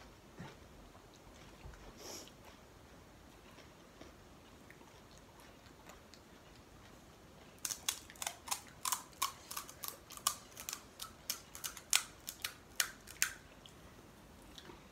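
Crisp, hollow panipuri (golgappa) shells cracking as a thumb punches holes in them: a quick run of sharp, crackly clicks, about three or four a second, starting about halfway in and lasting some six seconds. Before that there is only quiet room tone.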